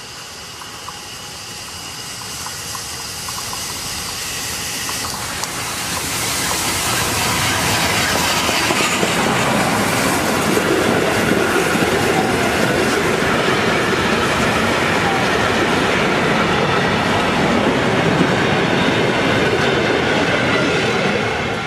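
A train passing, its rumble and wheel clatter growing louder over the first several seconds, then holding steady and loud.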